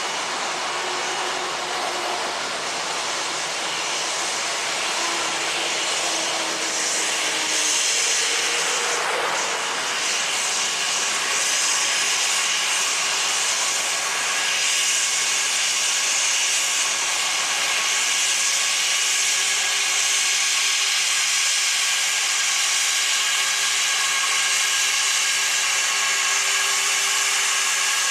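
Jet engines of an Airbus A320-family airliner taxiing toward the listener: a steady whine over a strong hiss, slowly growing louder as the aircraft approaches.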